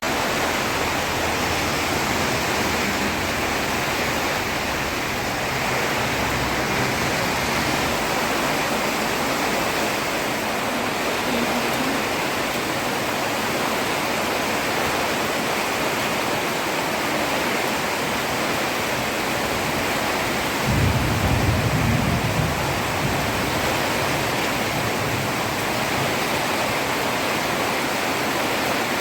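Heavy rain falling steadily on a road, an even hiss. About two thirds of the way through, a brief low rumble swells up and fades.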